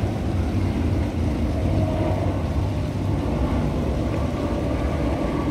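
Steady low rumble of a car in motion, with road and engine noise heard from inside the cabin.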